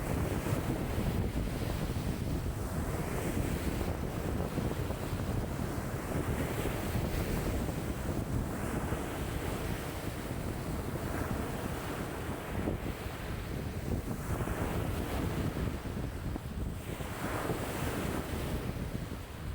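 Wind-driven lake waves breaking and washing in strong wind, the surge of surf swelling every few seconds over a steady low rush of wind buffeting the microphone.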